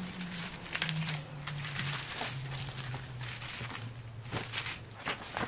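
Thin plastic garbage bags crinkling and crackling as they are unfolded and handled, in an irregular run of sharp crackles.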